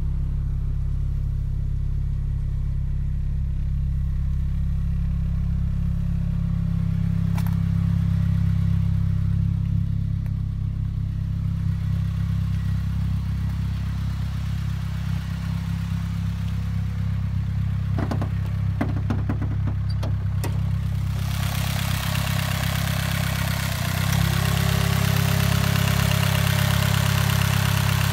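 Turbocharged Acura RSX Type-S's 2.0-litre four-cylinder engine idling steadily, with a few clicks in the middle. About three-quarters through it turns louder and hissier, and a steady whine joins it shortly after.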